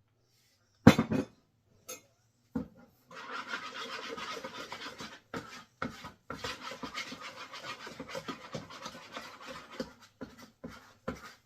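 A knock about a second in, then flour being stirred into a wet yeasted bread dough in a mixing bowl: a steady scraping and rubbing with many short, repeated stirring strokes.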